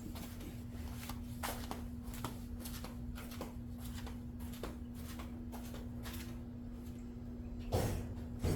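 Scattered clicks and rustles of hands handling a car headlight assembly and its parts. Two louder knocks come near the end. A steady low hum runs underneath.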